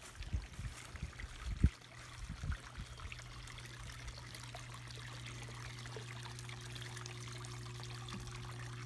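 Water trickling into a backyard garden pond, a fine steady splashing, over a steady low hum. A few low thumps sound in the first two seconds, the loudest about a second and a half in.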